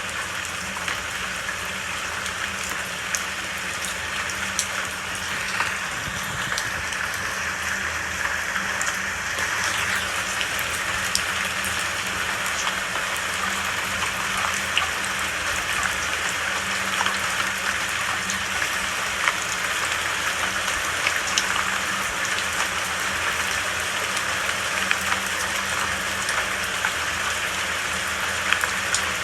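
Steady rain falling, with individual drops spattering on a surface.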